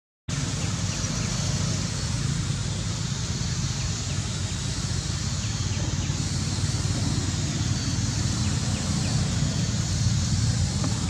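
Steady outdoor background noise: a low rumble under an even hiss, with faint short chirps here and there.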